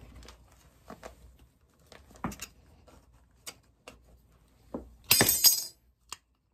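Metal tin snips and a brass strip being handled on a workbench: scattered clicks and taps, with a short metallic clatter about five seconds in.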